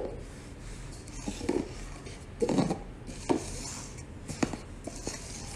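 Paper cups knocked down and slid across a hard marble floor by hand: a sharp tap at the start, then a few short scrapes and knocks spaced about a second apart as the cups are shuffled.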